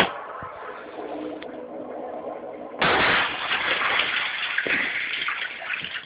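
Toilet bowl water: a sudden loud rush of water about three seconds in, fading away over about three seconds, with quieter watery noise before it.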